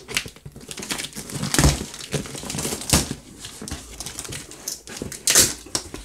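A knife slitting the packing tape along the seam of a cardboard shipping box, then the cardboard flaps being pulled open: a run of scraping and crinkling with three louder bursts.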